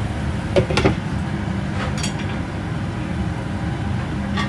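A glass pot lid set onto a frying pan, clinking twice in quick succession about half a second in, over a steady low rumble.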